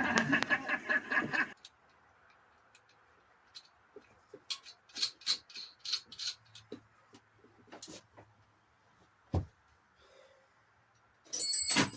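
Small metal parts and tools clicking and clinking during hand work, with a dull knock about nine seconds in. Near the end a dropped metal part clatters and rings.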